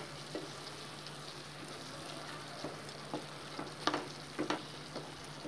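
Diced boneless chicken sizzling steadily in hot oil in a pan as a wooden spatula stirs it, with a few scrapes and knocks of the spatula against the pan, the loudest about four seconds in. The chicken is still releasing water, which is being fried off.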